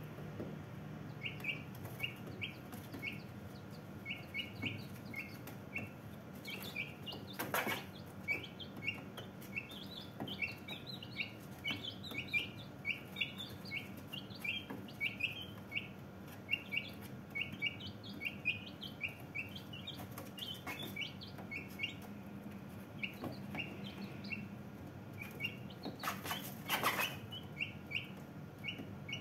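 Brahma chicks peeping continuously, short high peeps several times a second. A brief louder noise cuts across twice, about seven seconds in and near the end.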